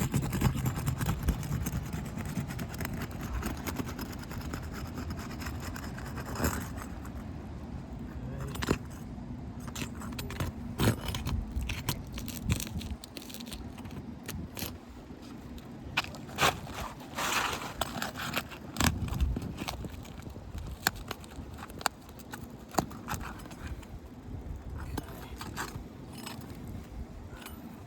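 Metal roof snake tool prying under asphalt shingles to break their adhesive seal strips: irregular scrapes, clicks and crackles, over a steady low rumble.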